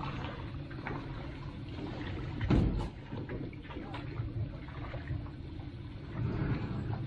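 Water lapping and splashing around a small aluminum fishing boat, with a single knock about two and a half seconds in.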